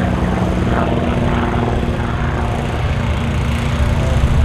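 Beechcraft T-34 Mentor's piston engine and propeller droning steadily in aerobatic flight, a little louder near the end.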